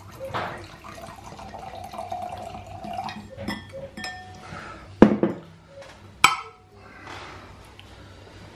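Red wine poured from a bottle into a large wine glass, the liquid ringing with a tone that rises slightly as the glass fills. Then a few light clinks and two sharp knocks of glass and bottle on the worktop about five and six seconds in.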